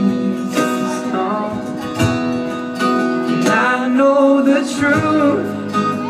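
Live pop-rock song: an acoustic guitar being strummed, with a male voice singing over the band.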